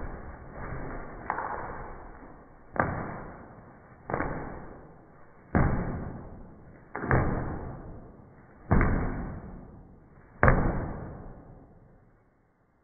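Rooster flapping its wings in repeated bouts: about seven flurries roughly a second and a half apart, each starting sharply and dying away over about a second.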